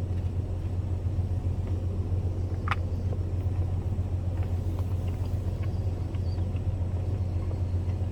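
A steady low mechanical hum, with one short sharp click nearly three seconds in and a few faint ticks after it.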